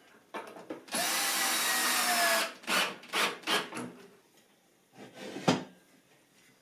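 Power drill running for about a second and a half, its pitch sagging slightly, then several short bursts and one sharp knock near the end.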